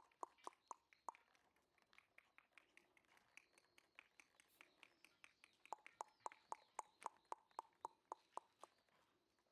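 Faint, evenly spaced tongue clicks, about four a second, in two runs. The first run is higher-pitched; the second, a little past halfway, is lower and louder. Clicking like this is used to call a puppy.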